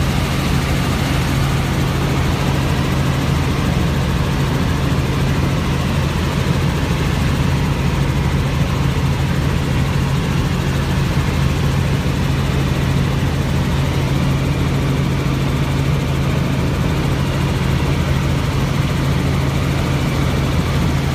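Helicopter in flight heard from inside the cabin: steady engine and rotor noise, a constant drone with a strong low hum.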